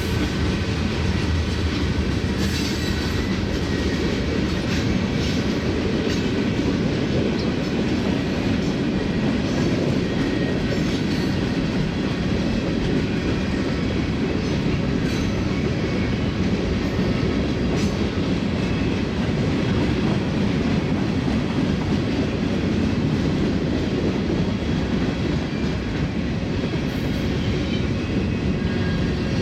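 Manifest freight train rolling by: a steady rumble of wheels on rail, with faint scattered clicks and clatter.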